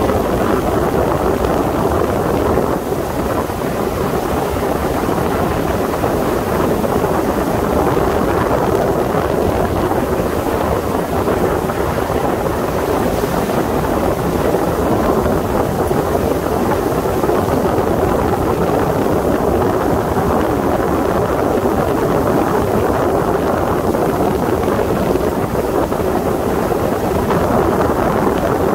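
A Sea Ray motorboat under way, its running blended with a steady rush of wind on the microphone.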